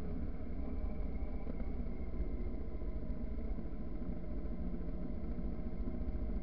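Motorcycle riding at a steady speed, its engine running evenly under a steady low rumble.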